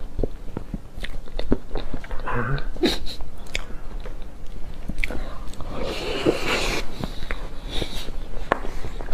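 Close-up eating sounds: a mouthful of chocolate cake being chewed, with wet mouth sounds and many small scattered clicks.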